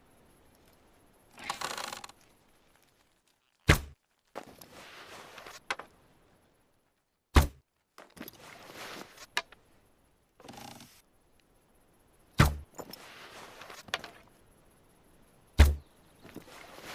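Hunting bow-and-arrow sound effects: four sharp, heavy thunks about three to four seconds apart, with stretches of softer hissing noise between them.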